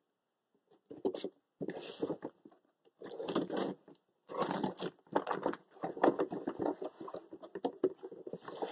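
A cardboard shipping box being opened by hand: packing tape tearing and flaps and packing scraping and rustling in a run of short scrapes that start about a second in and grow busier after about four seconds.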